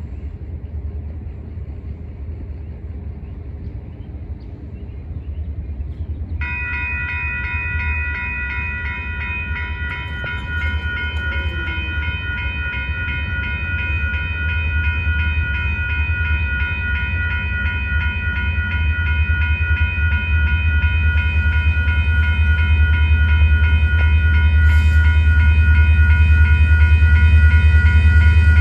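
Diesel locomotives of a freight train rumbling closer, growing steadily louder. About six seconds in, the railroad crossing bell starts ringing in a rapid, steady repeat and keeps going.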